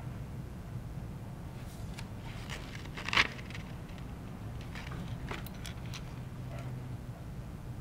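Handling noise as a painted plastic crankbait is picked up and worked off its clip holder: one sharp click about three seconds in and a few lighter clicks about two seconds later, over a steady low hum.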